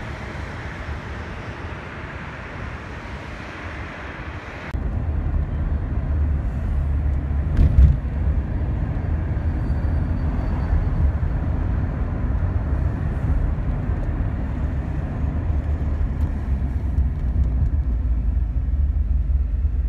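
For the first few seconds, a steady rushing hiss of distant highway traffic and wind. About five seconds in it cuts abruptly to the low, steady road rumble of a car driving through city traffic, heard from inside the car, with one short thump a few seconds after the cut.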